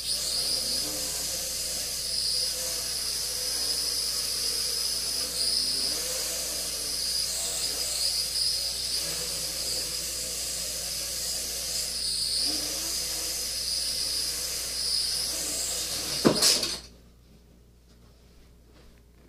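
Traxxas Alias mini quadcopter's propellers whirring in flight, a high, hissy buzz that swells and dips a little with the throttle. Near the end there is one sharp knock, and the motors stop half a second later.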